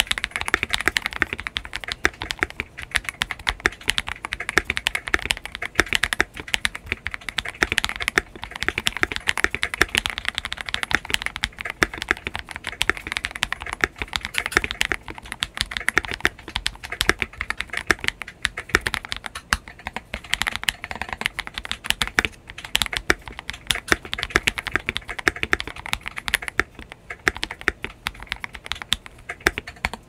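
Fast, continuous typing on a Tester84 mechanical keyboard fitted with Panda Fish frankenswitches (Outemu Red Panda stems in Akko Starfish housings, making a snappy, loud tactile switch) under MT3 /dev/tty keycaps. Dense clacking keystrokes with no real pause, stopping right at the end.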